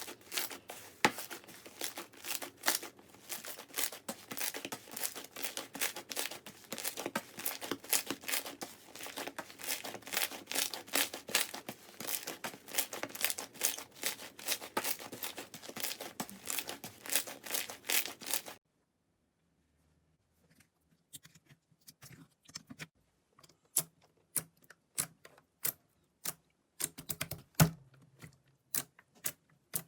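Slime being squeezed and worked by hand: a dense run of small clicks and crackles, cut off suddenly about two-thirds of the way through, then a short silence and sparser single pops and clicks.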